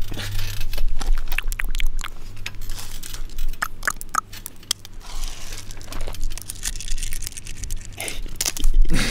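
Small crackling, rubbing and tapping noises made up close to a microphone, a scatter of sharp clicks at irregular intervals, over a steady low hum.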